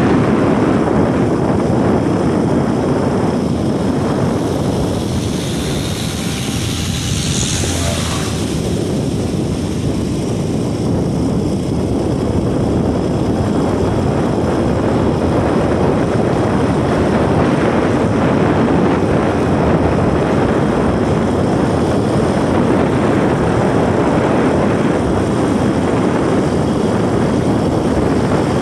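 Motorcycle riding along a road: a loud, steady rush of wind on the microphone mixed with the engine running, easing briefly a few seconds in.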